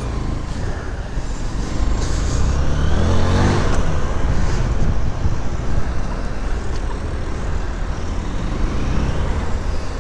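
Motorcycle engine running as the bike rides in city traffic, revving up with a rising pitch about three seconds in, over a steady low rumble.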